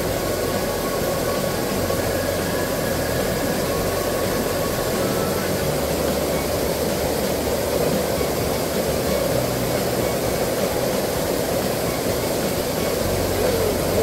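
Steady rushing of a shallow mountain stream flowing over and between rocks.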